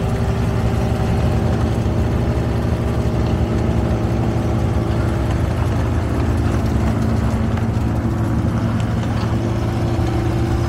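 Diesel engine of a Greenmech EVO 165DT tracked wood chipper running steadily at an even speed.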